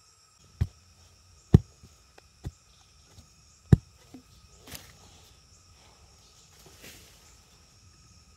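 Four heavy knocks, unevenly spaced over the first four seconds, followed by light rustling like steps in leaf litter, over a steady drone of forest insects.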